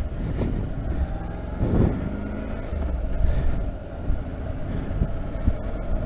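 Honda NC700X parallel-twin engine running at low road speed, heard through a helmet-mounted intercom microphone along with some wind noise.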